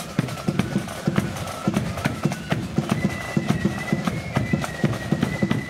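Marching band playing on the move: a high, sustained melody line over a brisk, steady drum beat, the tune stepping up to a higher held note about halfway through.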